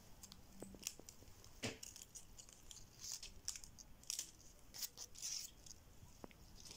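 Faint, scattered rustles and small clicks of a folded paper accordion strip being handled and pulled out.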